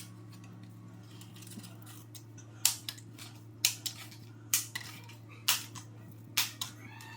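Dry lasagna noodles snapped by hand into pieces, five sharp cracks about once a second, each followed by a smaller click, over a steady low hum.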